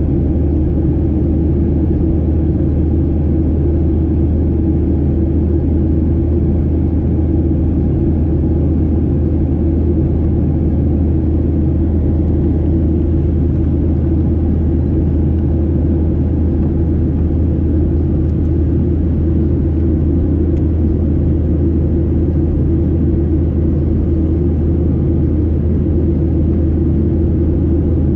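Boeing 737-800 cabin noise heard inside the cabin: a steady, unchanging low rumble of the jet engines and airflow.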